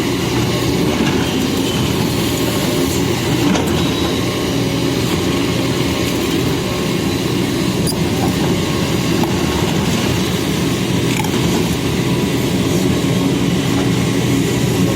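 Backhoe loader's diesel engine running steadily, a continuous low rumble with no sharp knocks or changes.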